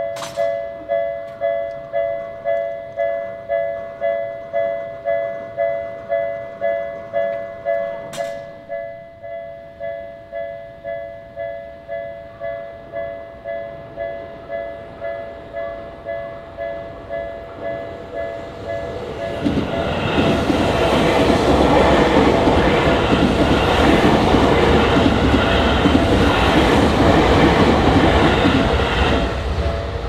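Japanese level-crossing warning bell ringing in a steady repeating ding-ding, about one and a half strikes a second. About 19 seconds in, a Tokyu Toyoko Line train runs through the crossing with loud rail and wheel noise for about ten seconds, and the bell keeps ringing under it.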